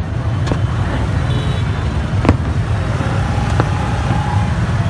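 Busy street traffic: a steady, dense rumble of engines, with a short high horn beep, a longer horn tone a little after the middle, and a few sharp clicks.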